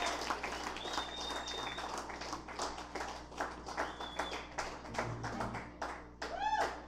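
Small club crowd clapping and whistling after a song, the applause dying away, with a single rising-and-falling whoop near the end.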